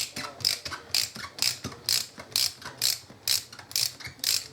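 Ratchet wrench clicking in short back-and-forth strokes, about two a second, winding in a brake caliper body bolt.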